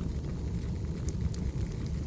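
Firewood burning: a steady low rumble of the fire with a few scattered sharp crackles and pops.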